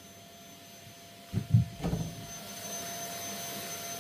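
A few dull thumps about a second in, then a vacuum cleaner starts running, a steady hiss with a faint whine.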